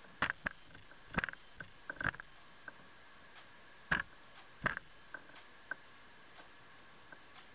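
Irregular sharp taps and clicks, singly and in quick little clusters, from a northern mockingbird's beak pecking at a suet cake in a wire-cage feeder.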